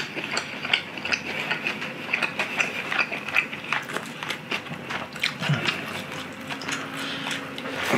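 A person chewing a mouthful of sweet-sauced, boneless charcoal-grilled chicken: a steady run of moist smacking and clicking mouth sounds.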